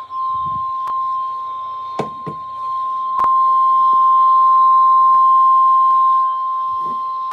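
NOAA Weather Radio 1050 Hz warning alarm tone: one steady, high, pure tone, the attention signal that comes before a warning message. It gets louder about three seconds in and drops back about six seconds in, with a few faint clicks and knocks over it.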